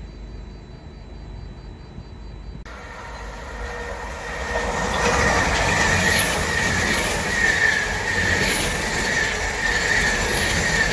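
LNER Azuma express train passing close at speed: the rush of the carriages and wheels on the rails with a steady whine and a wheel clatter that repeats about once a second. It starts abruptly about three seconds in, after a faint low rumble, and is at its loudest from about five seconds on.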